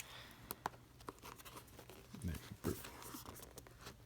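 Faint, scattered clicks and rustles of a cardboard CPU retail box being handled and pried at as someone works to open it.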